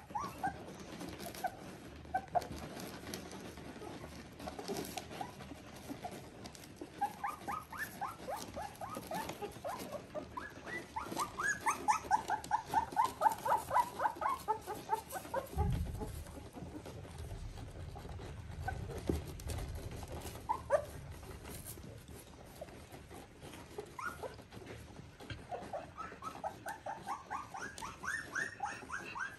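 Three-week-old Border Collie puppies squeaking and whimpering as they nurse, in quick runs of short high squeaks that are loudest around the middle and pick up again near the end.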